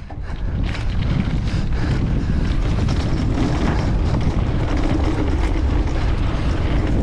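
Wind rushing over the microphone of a mountain bike's camera as the bike picks up speed, building over the first second and then holding steady.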